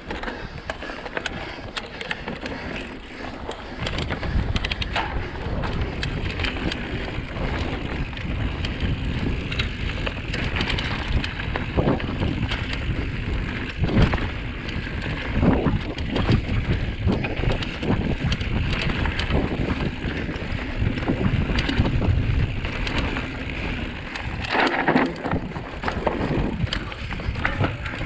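Giant Trance full-suspension mountain bike descending a dirt trail: steady tyre rumble with repeated knocks and rattles as it hits roots and rocks, and wind buffeting the microphone.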